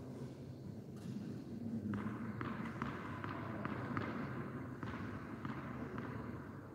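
A tennis ball bounced repeatedly on a hard court by a player before serving: a string of short, sharp bounces, two or three a second, starting about two seconds in and stopping about two seconds later.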